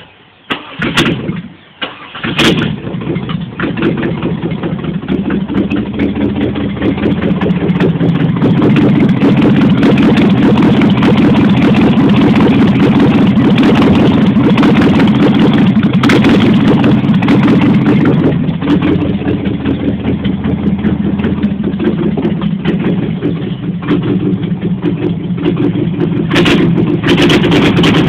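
A 1989 Jeep Grand Wagoneer's AMC 360 V8 starts about two seconds in after a few sharp pops. It then runs loud and unmuffled, because the exhaust manifolds are off and the cylinders exhaust straight out of the open head ports. The sound builds over the first several seconds, holds steady, and eases a little about two-thirds through. This is a short cold-weather run to burn off residue.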